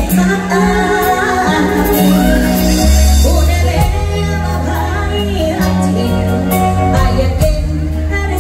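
A woman singing a Thai song into a microphone, backed by a live full band with a heavy bass line and a steady drum beat.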